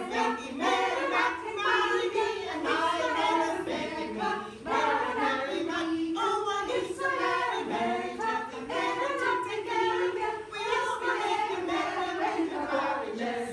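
A small vocal group singing together unaccompanied, several voices sounding different notes at once.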